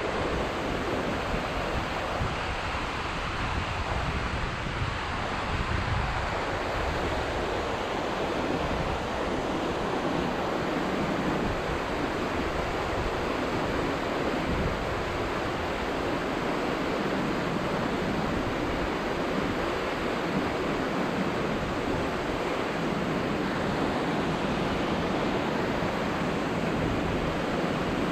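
Mountain stream rushing steadily over rocks: a constant, even hiss of fast-flowing water, with some uneven low rumbling in the first several seconds.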